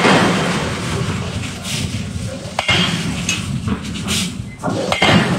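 Forge shop machinery noise around an open-die forging hammer and manipulator, with a single sharp metallic knock about halfway through.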